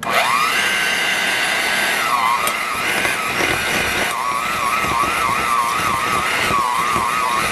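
Electric hand mixer switched on suddenly and creaming butter and sugar, a steady motor whine whose pitch wavers up and down as it runs.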